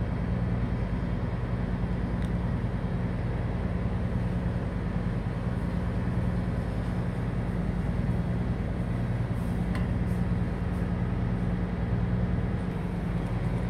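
Steady low machinery drone of a cargo ship underway, heard from the bridge: the ship's engine and machinery humming evenly, with no change in pace.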